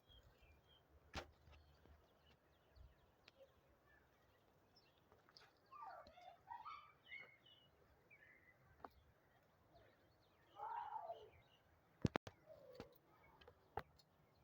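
Faint animal calls outdoors: a cluster of short curving calls about six seconds in and a longer call near eleven seconds, with a few sharp clicks, the loudest just after twelve seconds.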